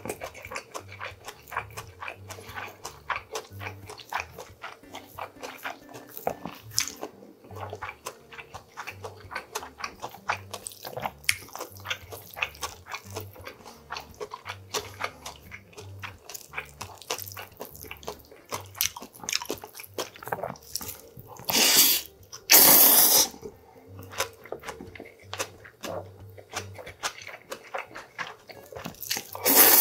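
Close-up eating sounds of a man chewing and smacking on a mouthful of bibimmyeon, cold spicy Korean noodles, a dense run of small wet clicks. A little after two-thirds of the way in come two loud noodle slurps, and another loud slurp starts right at the end.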